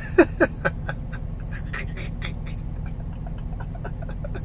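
A man laughing: three sharp bursts with falling pitch in the first second, then softer, breathy laughter, over the steady low hum of a car's engine.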